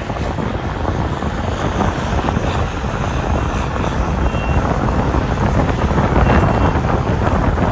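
Steady rush of a moving vehicle, with wind buffeting the microphone.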